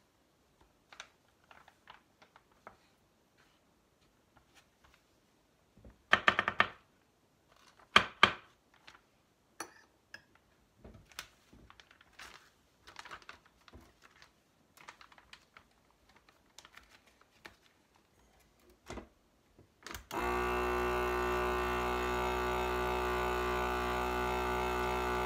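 Plastic vacuum-seal bag being handled, with scattered light clicks and crinkles and two louder bursts of rustling. About twenty seconds in, a countertop vacuum sealer's pump motor starts suddenly and runs with a steady drone, drawing the air out of the bag.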